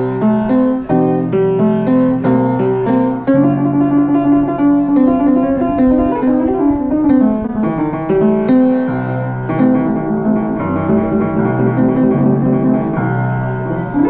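Piano being played: a flowing melody over chords, one note after another.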